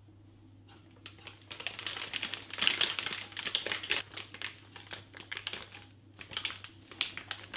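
Silicone spatula scraping buttercream around a stainless steel mixing bowl and a plastic piping bag crinkling as it is filled: irregular scrapes, taps and rustles that start about a second in, with a short pause near the end.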